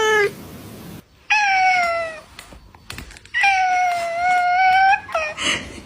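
A cat meowing several times: a call of about a second, then a longer drawn-out meow of about a second and a half, then a short rougher call near the end.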